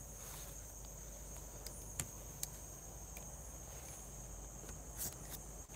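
Steady high chirring of night insects in tropical undergrowth, with a few faint, sharp clicks about two seconds in and again near the end.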